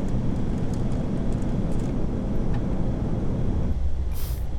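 Steady low rumble of an Airbus A380 flight deck in flight, from airflow and cabin air, during the approach with the first flap stage set. The rumble thins a little near the end, where a short high hiss is heard.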